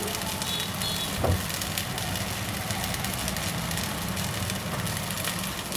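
A steady low mechanical hum with a soft hiss over it, the background drone of the kitchen while the sago khichdi sits in the steel pan on the gas stove. A single soft knock comes about a second in.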